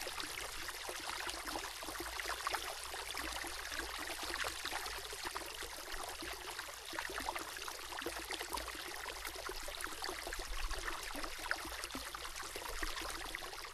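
Ambience of trickling, babbling stream water, steady with many small splashes, dipping away near the end.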